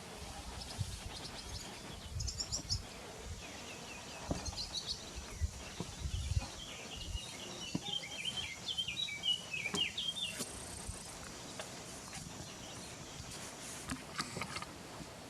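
Small birds chirping outdoors, with a quick run of high chirps about eight to ten seconds in, over steady outdoor background noise and brief low rumbles.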